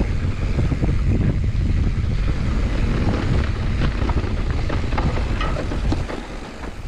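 Wind buffeting the microphone as a mountain bike rolls fast down a dirt trail, with scattered clicks and rattles from the bike over bumps. The wind noise eases slightly near the end.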